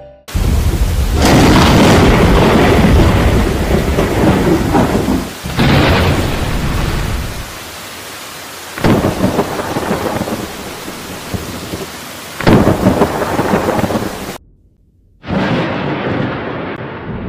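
Heavy rain pouring down through a thunderstorm, with thunder cracking and rumbling loudly four times. A brief dropout follows near the end, then one more crack of thunder that fades out.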